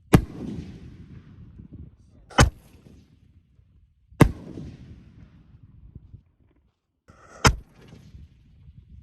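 Four loud aerial firework shell bangs at uneven intervals, each trailing off in an echo.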